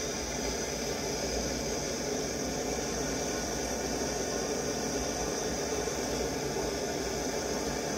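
Torch flame hissing steadily while it heats a strip of 24 karat gold to anneal it.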